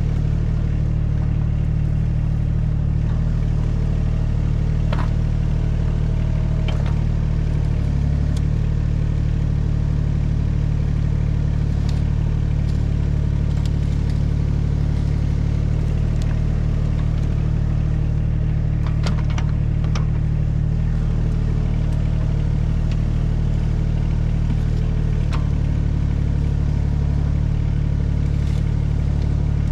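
Mini excavator's engine running steadily under load while the bucket digs a trench, with a few short knocks and clicks as the bucket works the soil.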